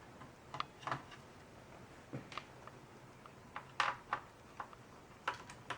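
Sporadic light clicks and taps of a screwdriver and small parts as screws are taken out of a mechanical keyboard.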